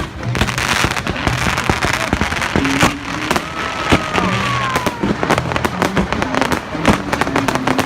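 Fireworks bursting and crackling in quick succession, a dense run of sharp bangs and pops. Around the middle, a whistle slides down in pitch. Low held tones sit faintly underneath.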